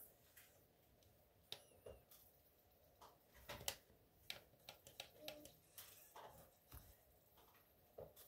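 Quiet, irregular clicks from an Alpine 7906R car CD player as its front-panel buttons are pressed to fast-forward and skip tracks.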